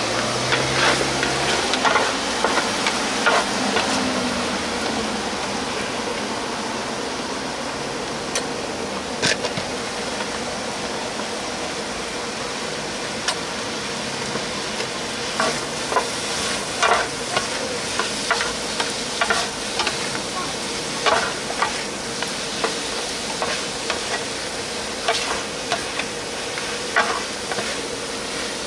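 Sundae bokkeum (blood sausage and pork offal) stir-frying and sizzling in a hot pan, with a metal spatula scraping and clacking against the pan at irregular intervals. A steady hum runs underneath.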